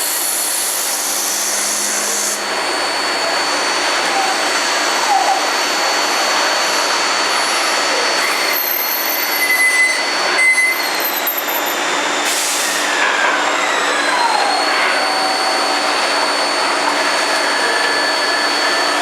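CNC machine running and machining metal: a steady mechanical noise with a high whine that drops in pitch about twelve seconds in and rises back a few seconds later, with a few short falling tones.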